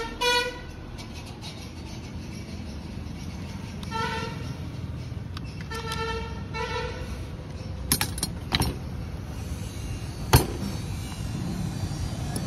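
Several short vehicle horn toots, a few seconds apart, over a steady low rumble. A few sharp clicks or knocks follow near the end.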